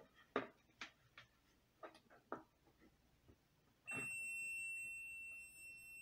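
A few light clicks and taps of handling a circuit board and test leads, then, about four seconds in, a digital multimeter's continuity buzzer starts a steady high-pitched beep. The beep shows a short circuit across the fan control's voltage regulator.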